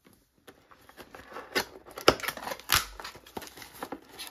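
Cardboard box of a diamond painting kit being opened by hand: scraping and rustling of cardboard and plastic wrap, with several sharp clicks partway through.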